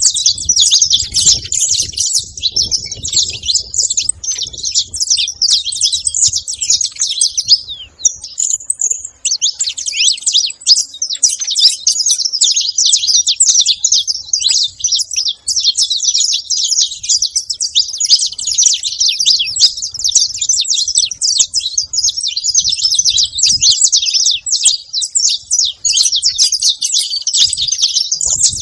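Saffron finch singing: a long, dense run of rapid high chirps and trills, broken only by a short pause about eight seconds in.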